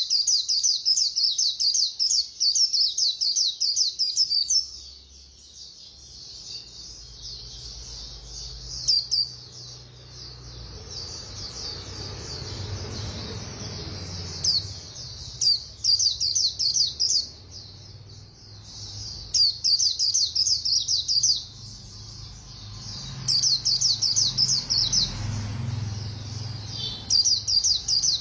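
White-eye (khuyên) singing its fast, rapid-fire warbling 'líu' song: high-pitched trilled phrases of one to several seconds, repeated again and again with short pauses between.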